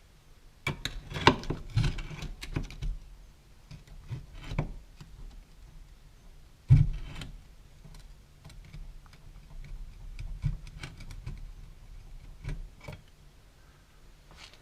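Irregular clicks, clinks and knocks of hand tools and parts being handled during work on a car's rear axle, with the sharpest knocks a little over a second in and at about seven seconds.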